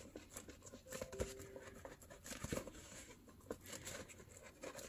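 Faint rustles and small scattered clicks of hands pressing and handling a handmade journal with a newspaper-collaged cover.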